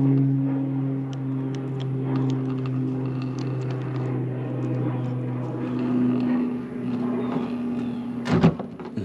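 A steady motor drone: a low hum with overtones, its lower part dropping away and its pitch shifting slightly about six seconds in, with faint ticking over it. A short clunk sounds near the end.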